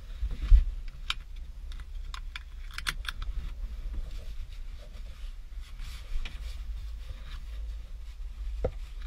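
Scattered light clicks and taps at an uneven pace over a low rumble, with a louder thump about half a second in.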